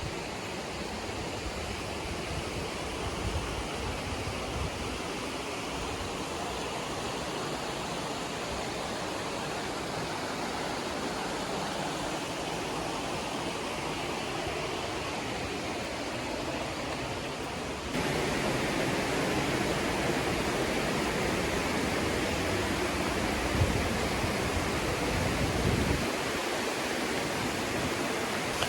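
Steady rush of a mountain waterfall and stream, an even hiss of falling water. About two-thirds of the way through it suddenly becomes louder and fuller.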